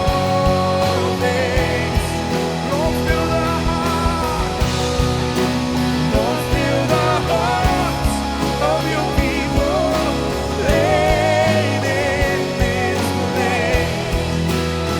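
A live church worship band playing a rock-style song, with steady drums and bass under a wavering melodic lead.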